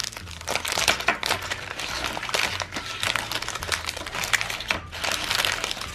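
Plastic candy wrappers crinkling and crackling as packets of lollipops and jelly beans are handled and shuffled on a table.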